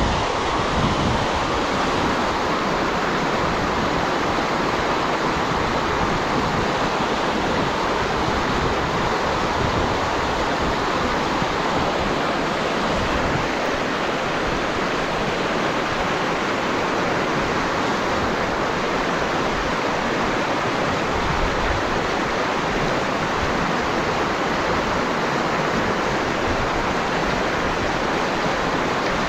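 Shallow rocky stream rushing through whitewater rapids: a steady, unbroken rush of water.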